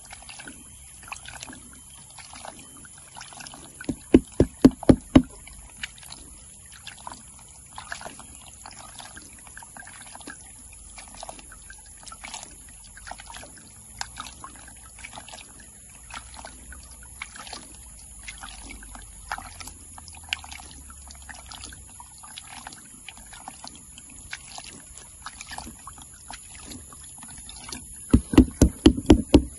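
Water splashing and trickling as a hand washes gravel in a plastic gold pan over a basin of water, with a short run of louder, quick sloshing about four seconds in and another near the end.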